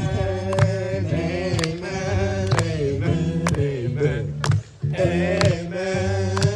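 Live band of acoustic and electric guitars, bass guitar and drum kit playing an upbeat song with voices singing along, a sharp beat about once a second over a repeating bass line. The music drops out briefly about four and a half seconds in, then comes back.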